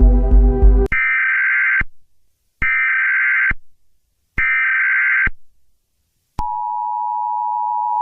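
Emergency Alert System broadcast signal. A low throbbing sound cuts off about a second in, followed by three short bursts of warbling SAME data-header tones. A steady, loud two-tone attention signal starts near the end and holds.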